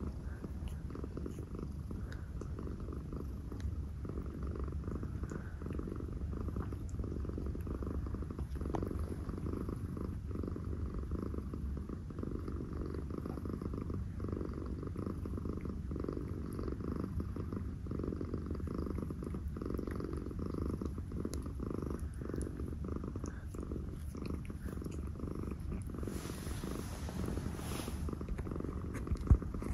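Domestic cat purring steadily, close up, a continuous low rumble. Near the end there is a brief soft rustle and then a single sharp knock, the loudest sound.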